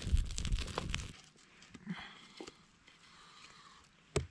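A small wood fire crackling for about the first second, then a few faint knocks of wood being handled, and near the end one sharp hit of an axe biting into a log.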